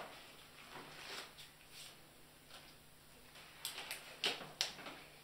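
Rubber examination glove being pulled onto a hand: faint rustling, then a quick run of short snaps and clicks in the second half.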